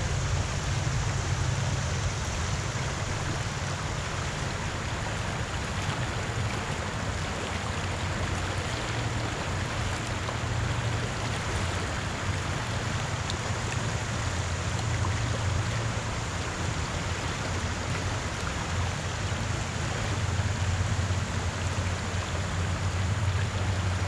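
Steady rush and lapping of river water around a canoe, with a low steady rumble underneath.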